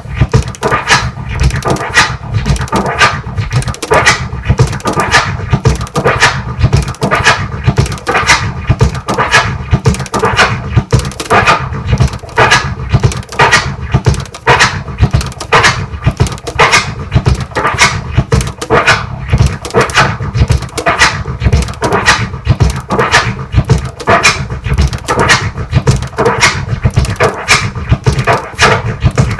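Turntable scratching of a kick-and-snare drum sample on vinyl: a three-click orbit on the forward stroke and three tears on the backstroke, eight sounds per cycle, repeated as a fast rhythmic run of short cuts. The same technique repeats with the snare hit falling in different places from pattern to pattern.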